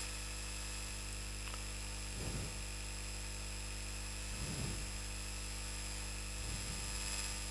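Steady electrical mains hum with hiss on the microphone line, with three faint soft sounds about two seconds apart.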